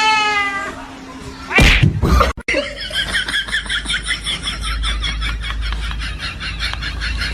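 A cat meows once at the start, a single call falling slightly in pitch. Then comes a loud short sound, followed by a fast, even run of short repeated sounds, about five a second.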